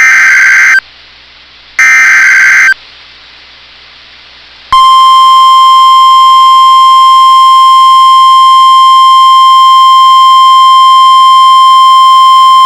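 NOAA Weather Radio Emergency Alert System activation. It opens with the last two of the SAME header's data bursts, harsh warbling buzzes about a second long and about two seconds apart. After a short gap, the steady 1050 Hz warning alarm tone starts about five seconds in and holds at one pitch.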